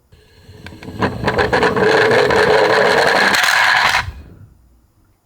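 Toy garbage truck rolling down a slope, its small wheels rattling and rumbling on the ramp with many little clicks; the noise builds over the first second and stops about four seconds in.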